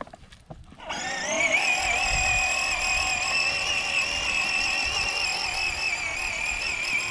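Electric drive motor and plastic gearbox of a kids' Power Wheels ride-on quad, its 6-volt motor run faster on an 18-volt Ryobi battery through a turned-up voltage controller. A high whine starts about a second in, rises in pitch as the toy speeds up, then holds steady.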